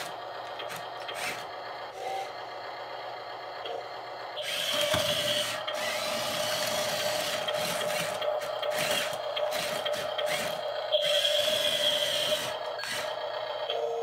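A 1/14-scale RC skid steer loader's small electric drive motors and gearboxes whirring and grinding as it drives through dirt, starting about four and a half seconds in, with a steady whine over the noise. Before that come only light clicks and ticks.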